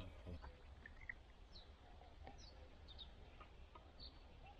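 Faint bird chirps, short and scattered, about one every second, over a low steady rumble.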